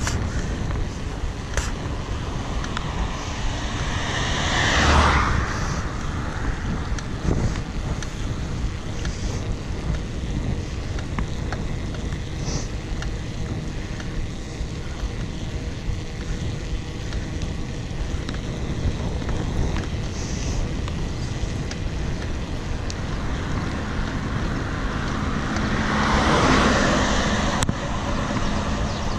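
Wind rushing over the microphone and tyre noise from a mountain bike coasting fast downhill on asphalt. There are two louder swells, about five seconds in and again near the end.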